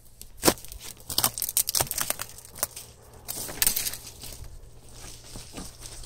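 Leafy branches and twigs rustling and crackling as they brush past the body and camera while climbing through scrub on rock, with scuffing footsteps. The crackles come irregularly, densest in the first four seconds.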